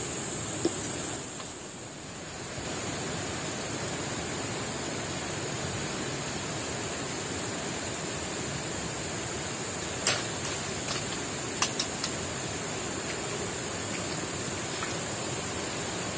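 Steady rushing river-water noise with a constant high-pitched hiss above it. A cluster of short sharp clicks comes about ten to twelve seconds in.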